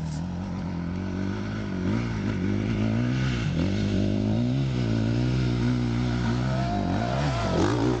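Dirt bike engine revving up and down as the rider works the throttle climbing a rocky hill, growing louder as it approaches, with a quick hard rev near the end.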